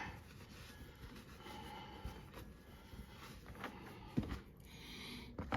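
Quiet garage room tone with a few faint clicks and taps, about four in all and the sharpest around four seconds in, from small metal tow-bar parts being handled.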